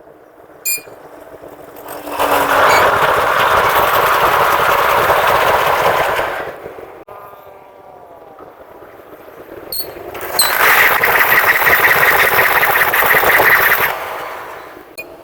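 A D20E diesel locomotive and its train rush past at speed, with a loud, fast clatter of wheels over the rails. It happens twice, each pass lasting about four seconds.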